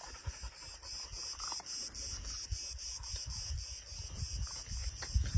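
A steady, high-pitched chorus of insects chirring, pulsing several times a second, with low rumbling underneath.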